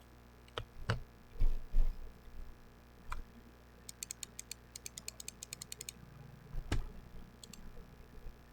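Glorious GMMK Pro mechanical keyboard with TTC Wild switches: a few scattered keystrokes and a couple of heavy thumps, then a quick run of light, high ticks about four to six seconds in, and one more keystroke near the end.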